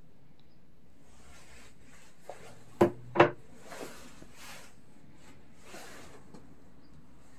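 Handling noises from taking a lawn mower apart: soft rubbing and scraping of parts and tools, with two sharp knocks about a third of a second apart roughly three seconds in.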